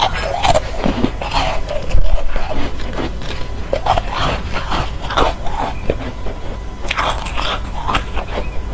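Close-miked bites and chewing of soft foam ice: a run of irregular crunches, with the loudest bite about two seconds in.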